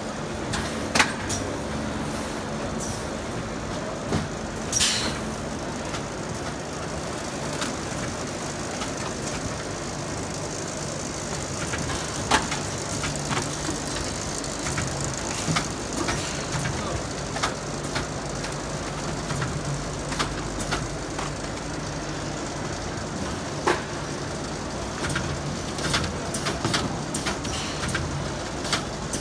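Packaging machinery running: a thermoforming tray-packing machine and a label sleever with conveyor belts, a steady mechanical hum broken by sharp, irregular clicks and knocks.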